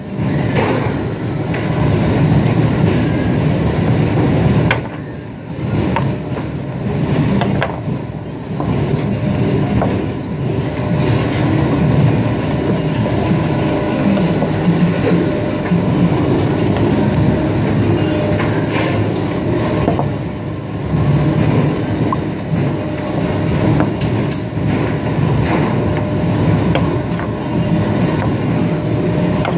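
Steady mechanical rumble and hum of a meat-cutting room's machinery, with a faint steady tone, running under occasional clicks and scrapes of a boning knife on lamb and the cutting board.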